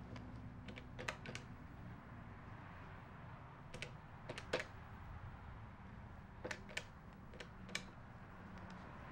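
A scattering of short, light clicks and taps at uneven intervals, about nine in all, in a few small clusters, over a faint steady room hum.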